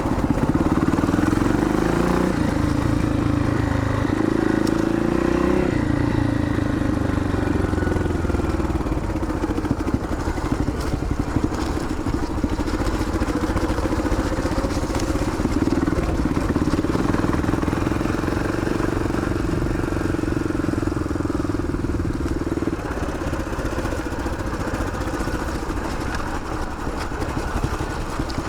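Yamaha XT500's single-cylinder four-stroke engine running under way. Its note rises and falls a little in the first few seconds, then holds steady.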